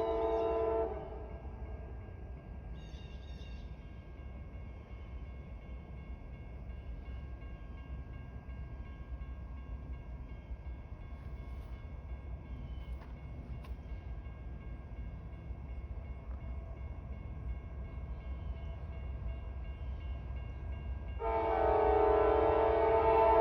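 Air horn of a CSX GE AC4400CW diesel locomotive sounding a chord that cuts off about a second in. A low, steady rumble of the train follows, and the horn sounds again, louder, near the end.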